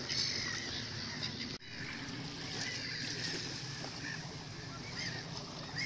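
Gulls calling in short, rising-and-falling honking cries, several times, over a steady rush of wind and sea.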